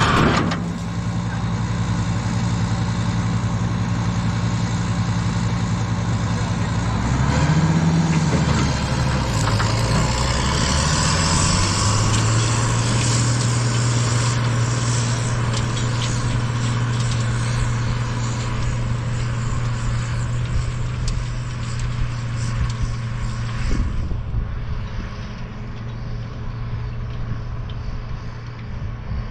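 International Harvester 1586 tractor's six-cylinder diesel running steadily while tilling with an M&W Dyna Drive; its pitch shifts and glides about seven to nine seconds in, then holds steady again.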